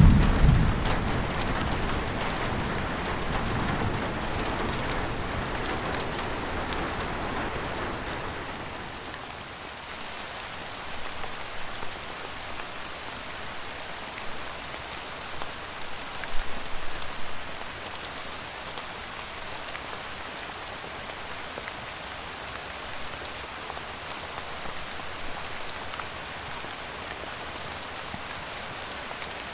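Steady rain falling and pattering on surfaces, with the low rumble of thunder fading away over the first several seconds; after that the rain alone carries on, with a few louder spells of drops.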